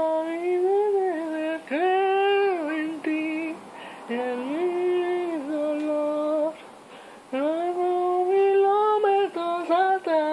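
A single voice singing a slow melody unaccompanied, in long held notes grouped into phrases with short pauses between them.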